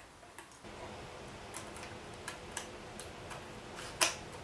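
Light, scattered clicks of CPU heatsink mounting hardware being handled and fitted, with one sharper click about four seconds in, over a faint steady hiss.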